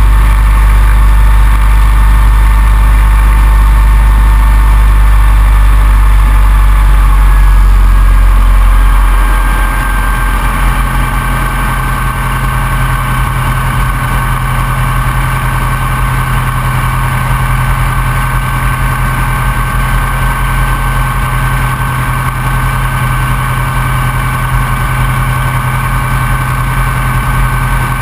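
Open-cockpit biplane's engine and propeller running steadily, heard close up from the wing. About nine seconds in the engine sound drops to a quieter, steady run and stays there.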